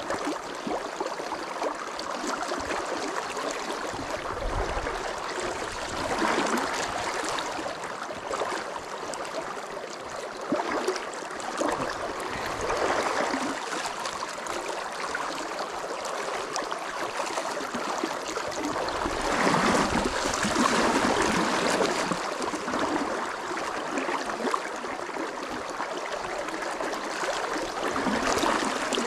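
A shallow, fast river running over rocks, rushing and gurgling steadily, swelling louder in places, most of all about two-thirds of the way in.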